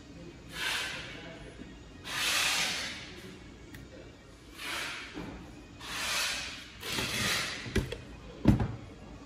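A copier's fusing belt unit being handled on a wooden workbench: soft swishing of hands sliding over the belt sleeve, five times. Near the end come two thumps as the unit is laid down on the bench, the second louder.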